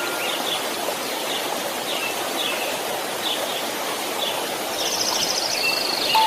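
Steady rushing white noise, like a stream, with small birds chirping over it again and again and a rapid bird trill about five seconds in.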